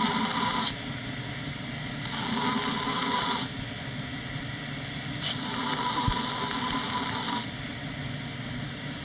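A grinder runs steadily. Three times, work is pressed against it for one to two seconds, and each pass gives a loud, rasping hiss.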